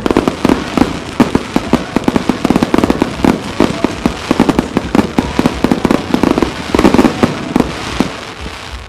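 Starmine fireworks barrage: many aerial shells firing and bursting in rapid succession, a dense run of sharp bangs several a second that thins out near the end.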